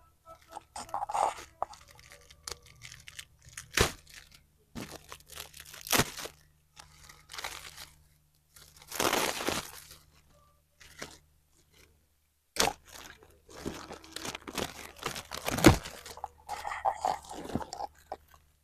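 Glossy gift-wrap paper and silver metallic foil being torn open and crumpled by hand: irregular crinkling and crackling, with several sharp snaps and a longer rustle about nine seconds in. A faint steady low hum runs underneath.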